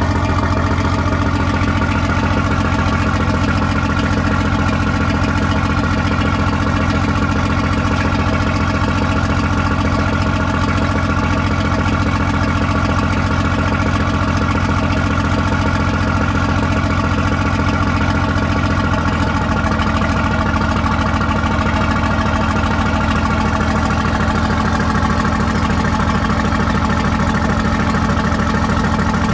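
Higgins boat (LCVP) engine idling steadily; its note shifts slightly about two-thirds of the way through.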